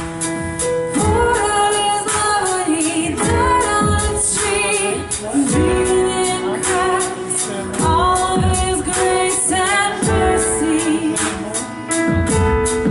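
Church worship band playing a song with a woman singing lead over held chords and a steady drum beat.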